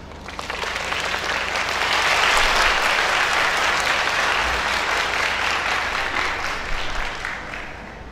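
Audience applauding: the clapping starts about half a second in, builds over the first two seconds, then dies away near the end.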